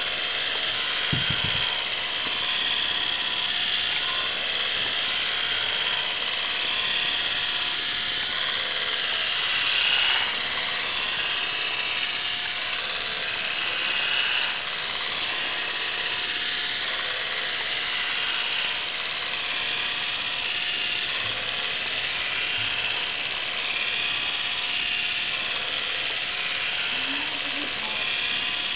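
Small electric motor and gear train of a metal construction-kit mechanism running steadily, a constant whine with a rattling, buzzing mechanical noise.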